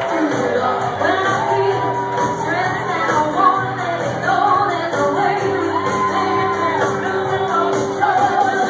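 Loud live music in a packed bar, with singing over it and a crowd shouting and singing along.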